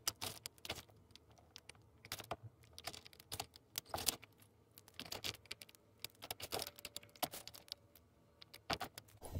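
Hands digging through damp soil in a plastic worm bin, played fast-forwarded: a faint, quick, irregular patter of small clicks and rustles.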